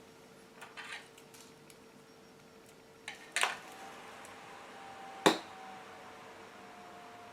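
Light clicks and knocks of small hard objects being handled, the sharpest about five seconds in and followed by a faint ringing tone, over a steady faint hum.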